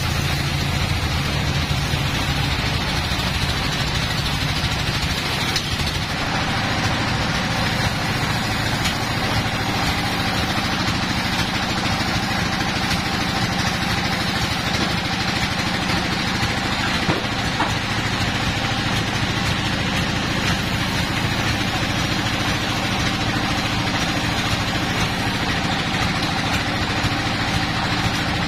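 Band sawmill machinery running steadily with a low engine-like hum, the saw idling between cuts while a log is loaded.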